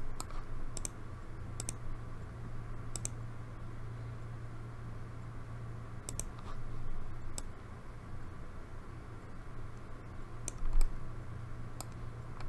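Computer mouse clicks, sharp and irregularly spaced, about nine in all, over a low steady hum.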